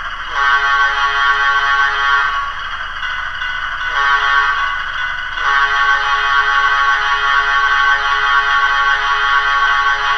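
MRC 1803 sound decoders in HO-scale Walthers Proto 2000 Alco PA and PB diesel models playing a horn through their small speakers: a blast of about two seconds, then after a short pause a long blast of about seven seconds with a brief break near its start. Under it runs the decoders' steady idling diesel engine sound.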